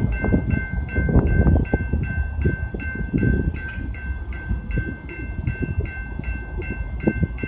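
GS Type 2 electronic crossing bell ringing steadily, about three strokes a second, over a low, uneven train rumble. It keeps ringing as the crossing gates start to rise.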